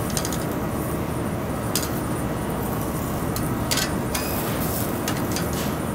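Steady rumbling roar of a commercial kitchen's gas char-grill and exhaust hood. Several sharp clicks of metal tongs on the grill grate and plate come about two seconds in and again around four seconds.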